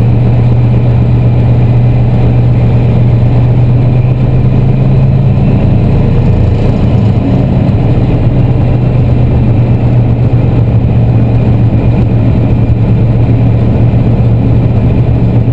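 Class 14 diesel-hydraulic locomotive's Paxman Ventura V6 diesel engine running under power, heard from inside the cab as a steady, loud low drone. Its note shifts slightly about halfway through.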